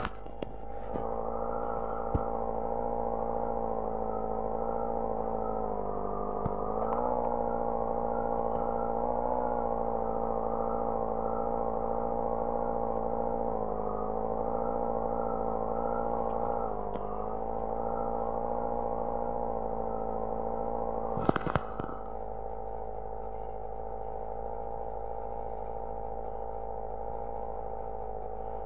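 A motor running with a steady whirring hum that wavers slightly in pitch a few times, with a short burst of clicks about 21 seconds in.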